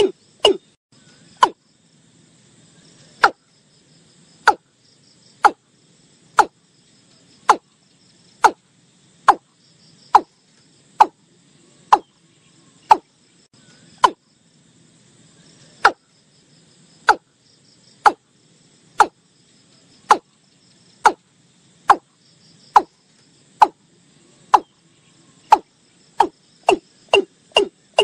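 Male watercock calling: single sharp, clipped notes repeated about once a second, quickening near the end into a fast run of deeper notes.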